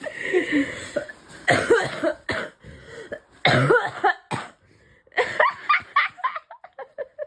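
A girl coughing in repeated bouts, about four hard fits followed by a run of smaller, weaker coughs near the end.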